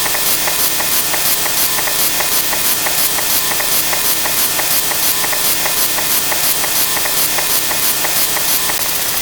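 Loud rhythmic rasping, like sawing or filing: even strokes about four a second. Near the end it changes to a finer, steadier buzz.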